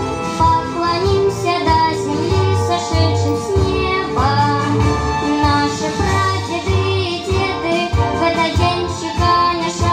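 A boy singing a solo into a handheld microphone over instrumental accompaniment with a pulsing bass line.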